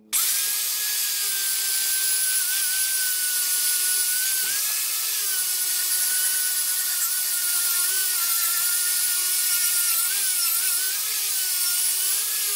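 Angle grinder with a twisted-knot wire wheel scrubbing rust off the steel blade of an old meat axe: a steady motor whine over the hiss of wire on metal, its pitch wavering slightly. It starts abruptly at the beginning.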